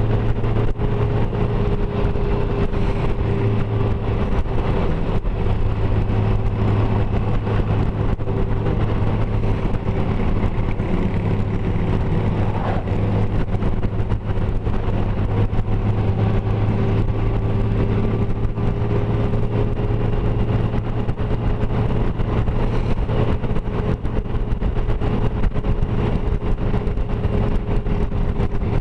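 Honda Gold Wing touring motorcycle cruising at a steady speed, its engine a steady drone under wind and road noise, heard from the rider's seat.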